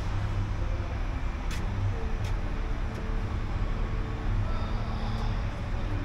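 Diesel engine idling with a steady low rumble; a faint steady hum joins it about two seconds in and stops a couple of seconds later.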